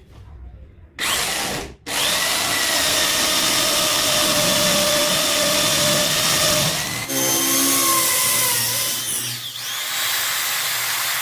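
Electric drill running: a short burst about a second in, a brief stop, then a long continuous run whose pitch shifts around seven seconds in.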